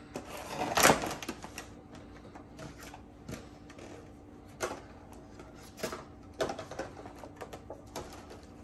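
Stiff clear plastic packaging from a trading-card collection box being handled, giving irregular crinkles and clicks, the loudest crackle about a second in.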